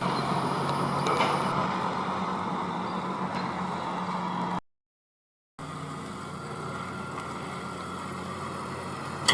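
Steady engine noise with a low hum, which drops out to dead silence for about a second midway and then resumes.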